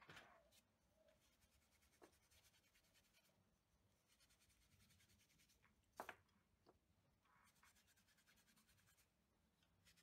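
Faint scratchy rubbing of steel wool over shellac-finished wooden toy wheels, smoothing the dried finish, with a few small clicks and one light knock about six seconds in.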